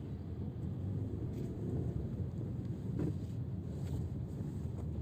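Steady low rumble of a car moving off slowly, with a few faint clicks.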